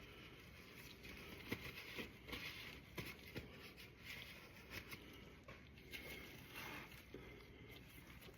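Near silence with faint handling noises: a few light clicks and soft rubbing as parts are handled.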